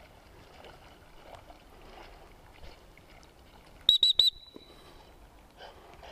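A gundog training whistle blown in three short, sharp toots, the last trailing off briefly.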